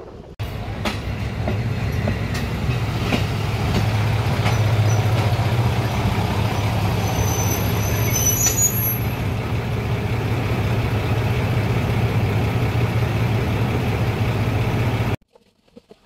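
Ex-JR Hokkaido KiHa 183 diesel railcar passing at close range, its diesel engines droning steadily with wheel clicks over the rail joints. A brief high squeal comes about eight seconds in, and the sound cuts off suddenly near the end.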